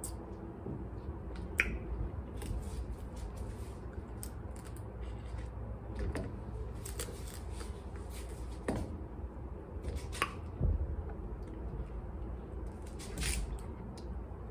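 Cooked blue crab shells cracking and clicking as they are picked apart by hand, in scattered short snaps, the loudest about a second and a half in, around ten seconds and near the end.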